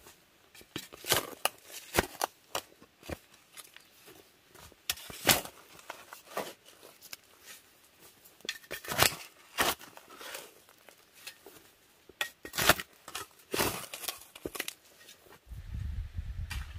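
Rubber boots treading on loose, clumpy freshly dug soil: irregular crunching steps about a second apart. Near the end a low steady rumble comes in.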